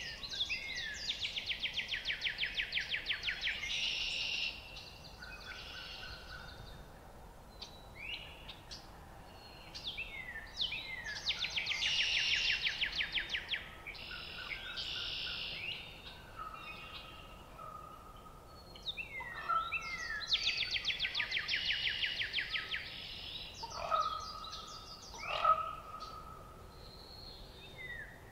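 Wild birds singing. One songbird repeats a loud song three times, about nine seconds apart, each built on a fast rattling trill about three seconds long. Softer chirps and short whistled notes from other birds fill the gaps.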